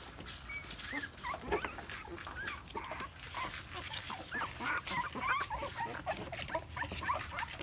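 Very young puppies whimpering and crying, with many short, high-pitched squeaks rising and falling and overlapping one another.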